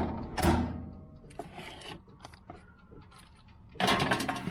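Kitchen clatter as the loaf is readied for the oven: a loud clank about half a second in with a short metallic ring after it, a few light clicks, then a quick run of knocks near the end.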